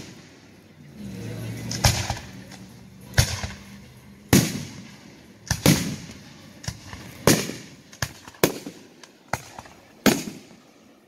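Aerial fireworks shells bursting overhead: a string of sharp bangs, roughly one a second, of varying loudness.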